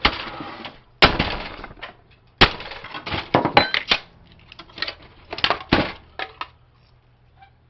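Hammer blows cracking and breaking the plastic housing of a computer printer: a string of sharp knocks and splintering cracks, ending about six seconds in.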